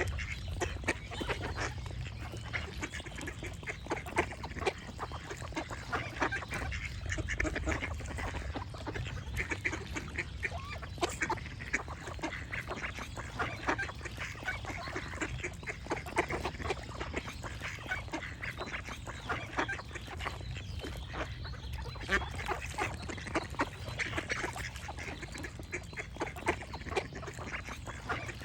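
A flock of ducks quacking continuously, many short calls overlapping one another, over a steady low rumble.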